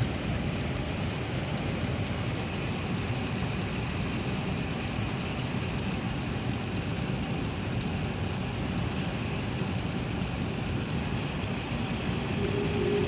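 Steady engine and air noise heard inside an Airbus A380-800 passenger cabin, an even rumble and hiss. Near the end it grows louder and a steady engine whine sets in.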